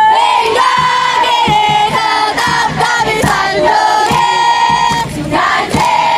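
A group of girls chanting a rhythmic team cheer in high, shouted voices, with sharp beats cutting through it.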